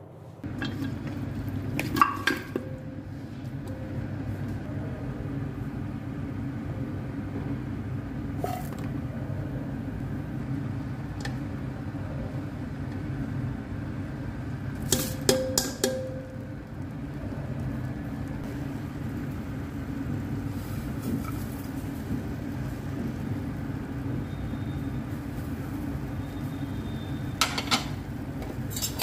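A steel strainer and steel pot clink a few times, with a short cluster of metallic knocks in the middle, over a steady low hum.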